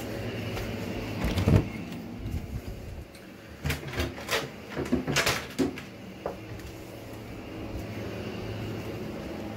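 Knocks and clunks of a door being handled, loudest about a second and a half in and again in a run between about four and six seconds in, over a steady low hum.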